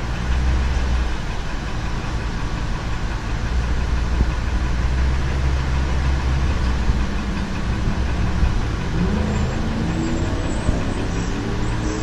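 Ford F-250's 6.8-litre V10 gasoline engine running steadily, then its speed rising over the last few seconds. The owner hears a ticking knock in it that new coils and spark plugs have not cured.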